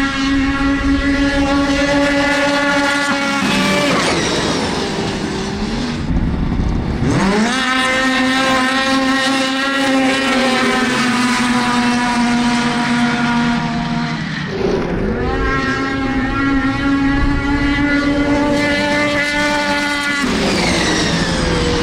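Several two-stroke snowmobiles racing at full throttle, their engines holding a steady high pitch. The pitch drops sharply as sleds pass by, a few times, and climbs again about seven seconds in.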